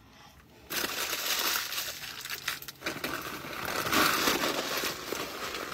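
Takeout food packaging crinkling and rustling close to the microphone as fried chicken is handled, starting just under a second in and loudest about four seconds in.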